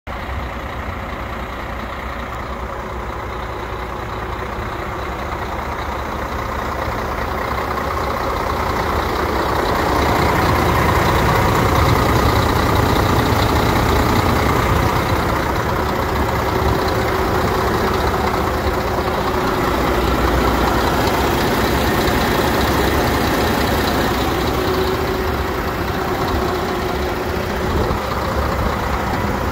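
MAN 28.464 truck's straight-six diesel engine idling steadily, a continuous low drone that grows louder after about ten seconds.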